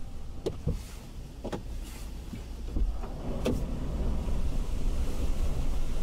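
Steady low rumble of hurricane wind and water over a flooded street, broken by a few brief squeaky clicks about half a second, a second and a half and three and a half seconds in.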